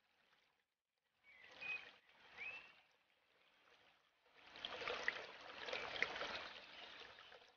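Faint aquarium water trickling and sloshing, coming and going in bursts and loudest over the last three seconds, with a couple of short high chirps about two seconds in.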